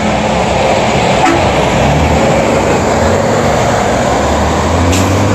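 Road traffic: a motor vehicle driving past close by, its engine running loudly over steady street noise.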